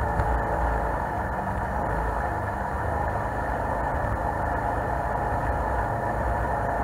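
Jet boat's engine and jet drive running steadily under way, heard from aboard the boat, with water noise mixed in.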